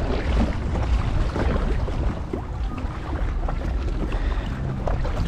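Steady wind buffeting the microphone over water and splashing around a small boat under way.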